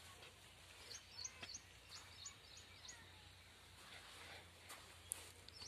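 Faint bird chirping: a quick run of short, high chirps about a second in, and a few more near the end, over a low steady hum with a few sharp clicks of handling noise.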